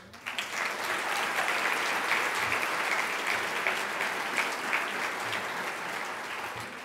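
Audience applauding. It builds quickly, holds steady, then tapers off near the end.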